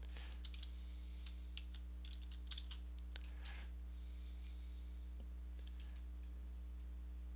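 Computer keyboard keys tapped in scattered single strokes, over a steady low electrical hum.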